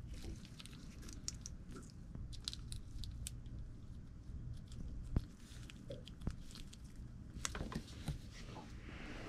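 Small clicks and rustling of latex-gloved hands working a plastic two-pin wire connector to plug the sending unit back in, with a few sharper plastic clicks about five and seven and a half seconds in, over a faint low hum.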